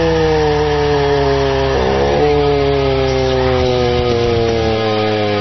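Film action-scene soundtrack as a car plunges off a bridge: one sustained, buzzy, engine-like tone slides slowly down in pitch, dipping briefly about two seconds in, over a steady low drone.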